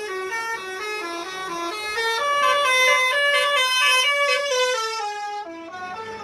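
A tour bus's basuri telolet horn playing a quick tune of short stepped notes, some sounding two at a time, louder through the middle stretch.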